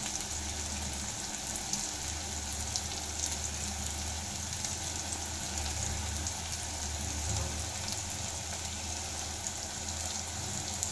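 Chopped onions and whole garlic cloves frying in hot oil in a kadhai: a steady sizzle with small crackles, the onions still pale at an early stage of browning. A low steady hum runs underneath.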